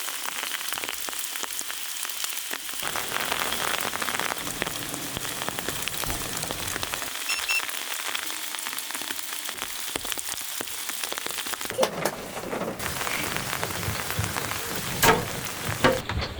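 Steady rainfall, with many separate drop hits. A few louder single taps stand out in the last few seconds.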